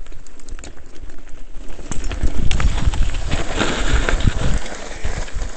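Mountain bike riding fast down a rough dirt trail: tyres rumbling over the ground, with a quick clatter of knocks and rattles from the bike, loudest from about two to four and a half seconds in.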